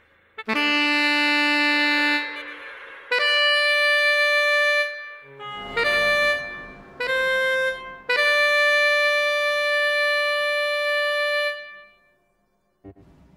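Solo single-reed woodwind playing a slow melody of long held notes, one at a time with short breaks between them; the last note is held for about three seconds and stops about a second and a half before the end.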